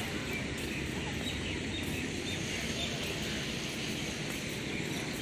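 Outdoor park ambience: a steady low rumble with faint, scattered high bird chirps over it.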